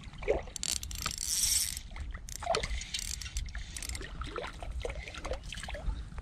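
Rustles and small clicks from handling a spinning reel and line close to the microphone, over a steady low rumble, with a hiss about a second in.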